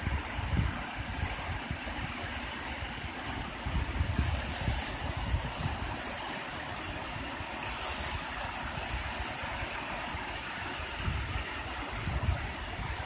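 Sea surf washing onto the shore as a steady hiss, with wind buffeting the microphone in uneven low gusts.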